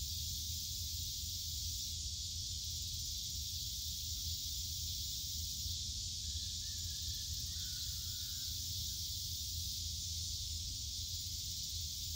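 Steady chorus of insects on a summer evening, a continuous high-pitched hiss, over a low rumble. A faint, wavering higher call sounds partway through.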